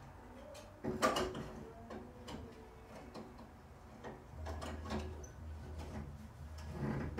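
Scattered knocks and clicks of metal parts being handled, with one louder clunk about a second in and another near the end. A faint steady low hum comes in about four seconds in.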